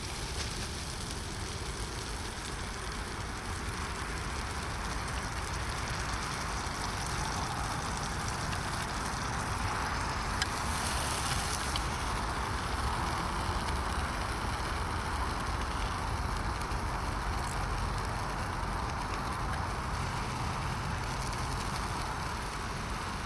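Eggy bread frying in a pan on a portable gas stove: a steady sizzle over the burner's hiss, swelling a little in the middle.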